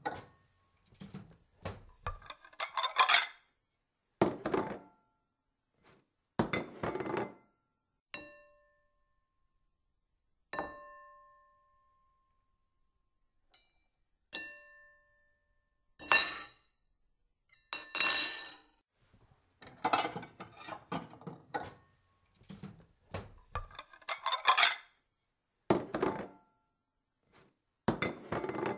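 Small stainless-steel toy pots and pans clinking and clattering as they are picked up and set down on a toy stove, in separate bursts with short silences between. A few light taps leave a brief, clear metallic ring that dies away.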